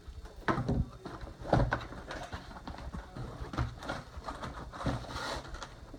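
Scissors snipping and hands handling a toy's cardboard and plastic packaging: irregular sharp clicks and knocks about a second apart, with rustling in between.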